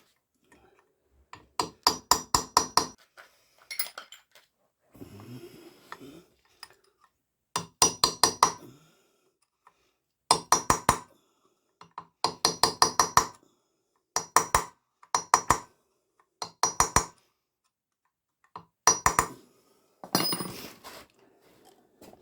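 Hammer blows on metal in short bursts of several quick strikes, each strike ringing brightly, with about nine bursts separated by pauses.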